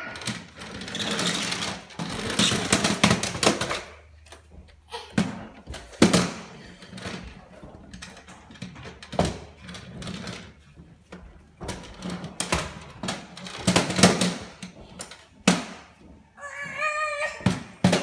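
Plastic push-along toy vacuum rattling and knocking against wooden stair treads as a toddler drags and lifts it up the steps, with repeated sharp thuds and rattly bursts. A short high wavering voice near the end.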